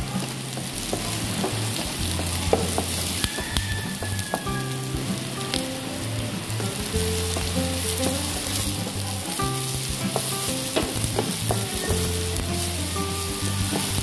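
Chopped onion, garlic and bell pepper strips sautéing in oil in a non-stick wok: a steady sizzle, with frequent short clicks and scrapes as a wooden spatula stirs them.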